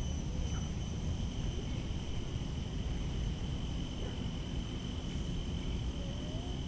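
Tropical garden ambience: insects keeping up a steady, high, unbroken drone over a constant low rumble.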